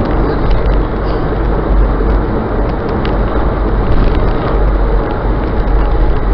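Steady road and engine rumble of a moving car, heard from a dashcam inside the cabin: a deep low drone under an even rushing noise.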